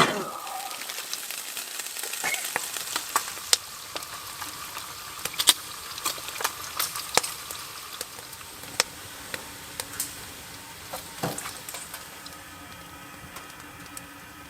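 Food frying in a pan, a steady sizzle with frequent sharp pops and crackles. It opens with a short loud rustle.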